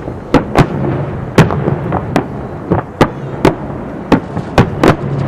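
Aerial fireworks display: shells bursting in rapid, irregular succession, about ten sharp bangs in five seconds.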